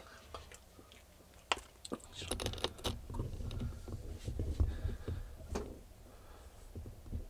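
Foil zip pouch of dried insects crinkling and rustling as it is picked up and handled, with a few sharp clicks and dull handling bumps; the densest crinkling comes about two to three seconds in.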